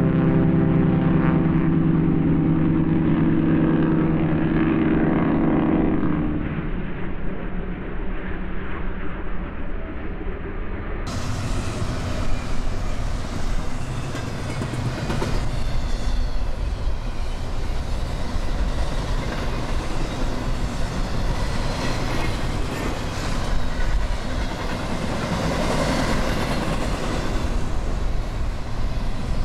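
Freight train passing: a locomotive's steady droning tone for about the first six seconds, then the rumble and clatter of the cars rolling by.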